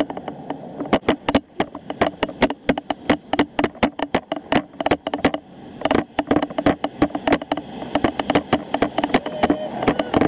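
Bicycle gear at the handlebars rattling as the bike rolls over the road: a fast, irregular run of sharp clicks and knocks, several a second, over a low rumble of road noise.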